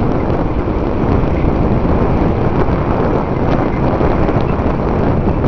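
Mountain bike tyres rolling over a gravel track with wind buffeting the bike-mounted microphone: a loud, steady rushing noise.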